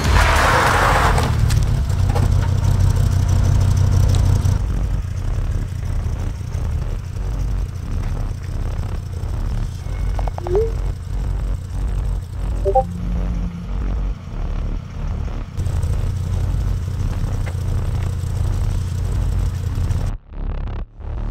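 1994 Dodge Viper RT/10's 8.0-litre V10 idling, a steady low rumble with an even pulse, louder in the first second or so.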